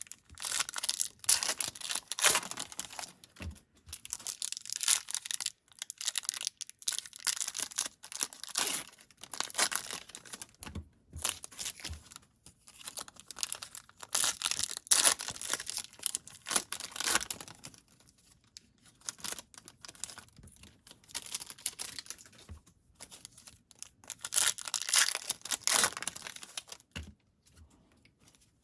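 Foil wrappers of Bowman Platinum trading card packs being torn open and crinkled, in irregular bursts of rustling with short pauses between.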